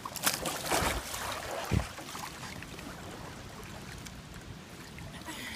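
Water splashing and sloshing around a kayak as it is hand-rolled upright, loudest in the first second or two, with a low thump about two seconds in, then quieter lapping water.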